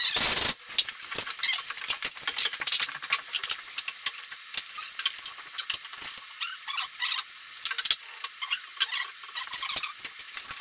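A short burst of noise at the start, then rapid, irregular light clicks, taps and small squeaks from a white oak stair tread and levels being handled and set onto a steel stringer.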